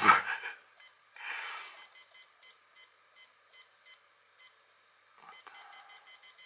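Hama LCD thermometer pen holder giving short high-pitched key beeps as its buttons are pressed to step the clock's minutes up, one beep per step. The beeps come in an uneven string in the first half, then a fast even run of about six a second near the end.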